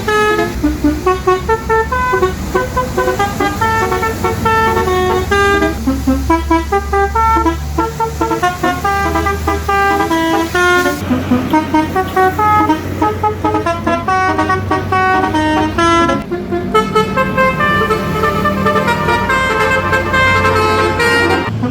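Large truck and bus horns sounding rapid, tune-like runs of short notes at shifting pitches, over a steady engine rumble. The horn changes abruptly about halfway through and again a few seconds later.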